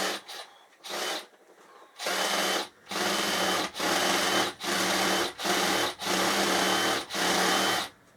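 Power drill running in about eight short bursts at a steady speed, the later runs coming nearly back to back, as when driving screws.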